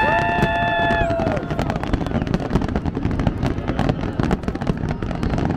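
Aerial fireworks crackling and popping densely, many sharp reports in quick succession. In the first second and a half, spectators give a long, held cheer over the crackling.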